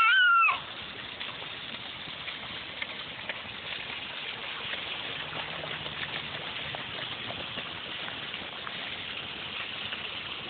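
Steady rain falling on a wet street, with rainwater running along the gutter and faint splashes of rain boots in the gutter water. A child's high-pitched squeal cuts off about half a second in.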